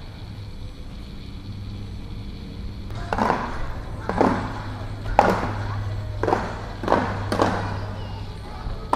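Drum beats, roughly one a second with a quick pair near the end, starting about three seconds in, each falling slightly in pitch. A low steady hum runs underneath.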